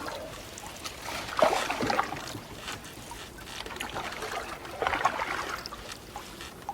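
Canoe paddling: two paddle strokes splash and swirl through the water, about three and a half seconds apart, with water trickling and lapping between them.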